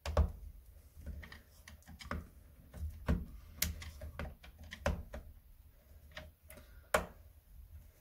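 Screwdriver working the terminal screws of a bell transformer in a consumer unit: irregular light clicks and taps of the tip and screws against the plastic housing, with a few sharper clicks.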